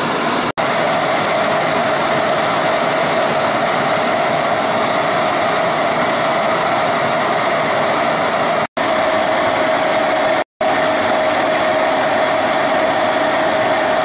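Carrier round air-conditioner condensing unit running: a steady rush of air from the condenser fan with a steady hum over it, cut off by three brief silent gaps.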